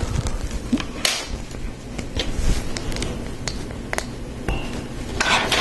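Lego Technic plastic parts clicking and clinking as pieces are handled and pins pressed into beams: a series of separate sharp clicks, with a short rustle near the end.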